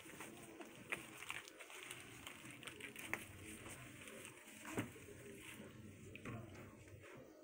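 Kittens scuffling and batting at a headband's dangling cords on a foam play mat and scratching post: faint rustling with scattered light taps and knocks, the clearest a little before five seconds in.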